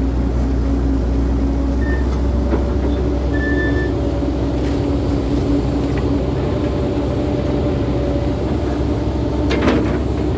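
Diesel engine of heavy construction machinery, an excavator, running steadily with a low rumble and a steady drone. A brief louder noise sounds near the end.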